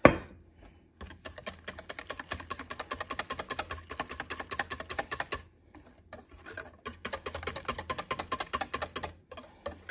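A wire balloon whisk beats thin pancake batter in a stainless steel bowl: quick clicking and tapping of the wires against the bowl, in two long spells with a short pause about halfway through. A sharp knock at the very start is the loudest sound.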